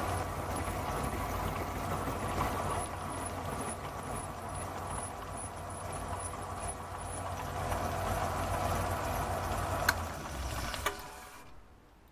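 Small milling machine running as it takes the final milling pass along the last flat of a square drive on a jaw-screw shaft: a steady motor hum with the rougher sound of the cut over it. About ten seconds in come two sharp clicks, and the machine is switched off and runs down to near silence.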